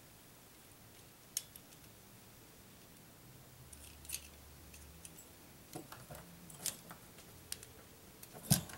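Scattered small clicks and ticks of hands working a bundled power cord loose, with a sharper click near the end.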